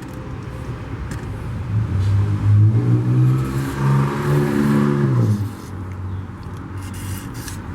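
A motor vehicle's engine hums steadily for about three and a half seconds, then dies away with a slight drop in pitch.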